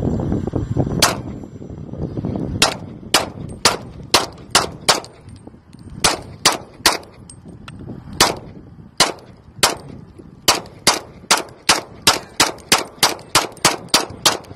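.40-calibre semi-automatic pistol with an extended magazine, fired shot after shot, close to thirty rounds. The shots come in uneven runs about half a second apart, then speed up to about three a second near the end.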